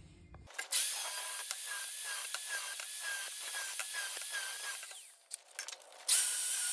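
Angle grinder grinding the leftover splines off the steel hub of a ceramic-paddle clutch drive plate: a steady grind with a wavering motor whine for about four seconds. It stops, then starts again near the end.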